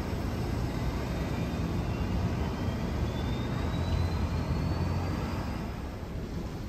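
City traffic: a steady low rumble of passing vehicles, with a faint whine that rises slowly in pitch over several seconds.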